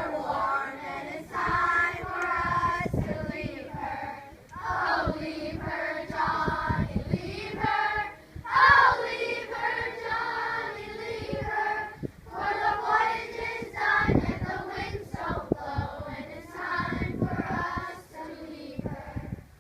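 A group of children singing together in phrases, with short breaks between them.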